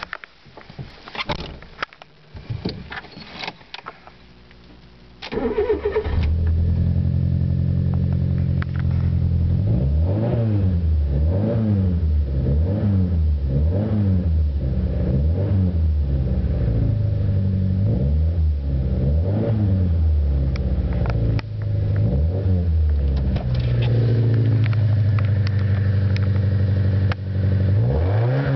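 Autobianchi Y10 small four-cylinder engine cranked and started about five seconds in, after a few knocks and handling noises. It idles through a tuned exhaust and is blipped again and again, the revs rising and falling about once a second, settling back to idle between bursts.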